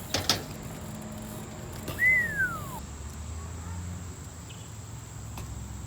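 BMX bike knocking against the skatepark ramp: a couple of sharp knocks at the start and a louder one about two seconds in. The louder knock is followed by a single falling squeak.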